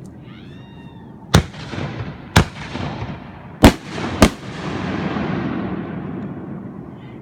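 Aerial fireworks shells bursting: four loud booms within about three seconds, the last two close together. Each boom is followed by a long rolling rumble that fades over the next few seconds.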